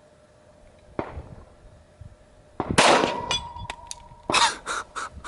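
Glock 40 10mm pistol firing: two loud shots about a second and a half apart in the second half, with fainter sharp cracks before them. A steady ringing tone hangs on after the first loud shot.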